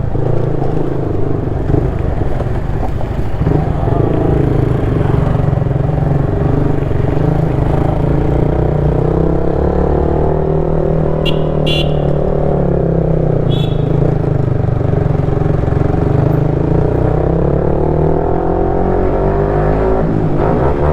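KTM 390 Duke's single-cylinder engine running under way, its pitch rising and falling with the throttle over a heavy low rumble. Three short high beeps come about halfway through.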